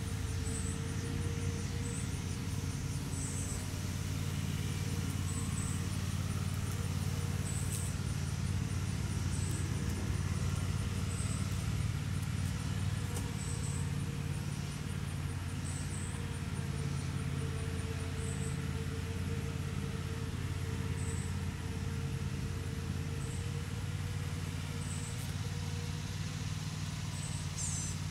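Steady low mechanical hum, like an engine or motor running, throughout. Short high chirps repeat every second or two over it.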